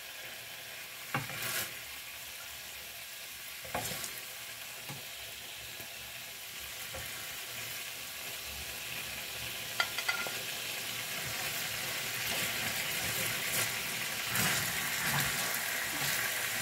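Chicken pieces in sauce sizzling in a stainless steel pan, with a few sharp clicks of tongs against the pan and dish as the browned pieces are lifted out. The sizzle grows a little louder near the end as the tongs move through the sauce.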